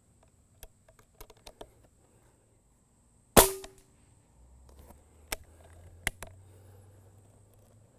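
Unsuppressed Benjamin Maximus .177 pre-charged pneumatic air rifle firing a single shot about three and a half seconds in: one sharp crack with a brief ring after it. A few light clicks come before the shot and three sharper clicks a couple of seconds after it.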